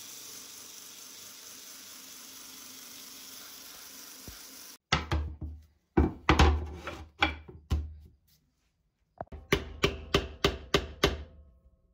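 A belt sander hisses steadily as it grinds a metal ring, then cuts off abruptly. Wooden boards knock loudly several times against a wooden floor. Near the end comes a quick run of about eight sharp hammer taps on a chisel set into a wooden block held in a bench vise.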